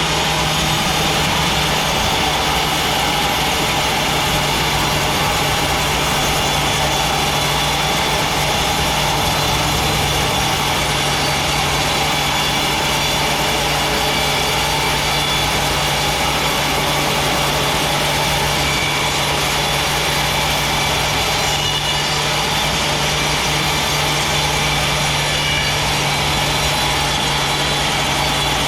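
Sawmill running steadily with a constant low hum, sawing a large teak log into thick boards.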